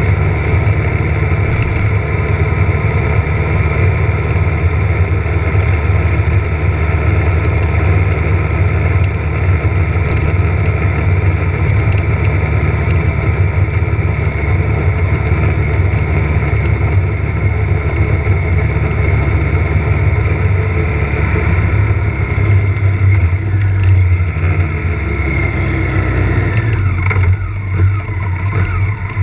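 Motorcycle engine running steadily under way, heard from a camera mounted on the bike. About two seconds before the end the engine note falls and the sound dips as the bike slows.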